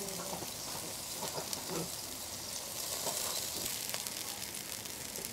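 Spicy red chili-oil broth boiling hard in a wok, a steady hiss, as slices of marinated beef are dropped in and begin to cook.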